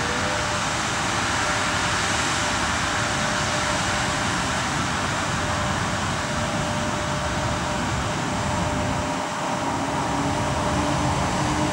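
EP1M electric locomotive moving off with a passenger train: a steady rushing of its cooling blowers. About three-quarters of the way in, a whine starts and slowly rises in pitch as the locomotive gathers speed.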